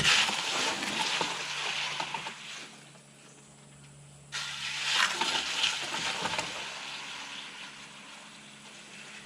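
Water from a hose splashing into a bucket as concrete is rinsed out of it, in two runs of a few seconds each that start suddenly and tail off.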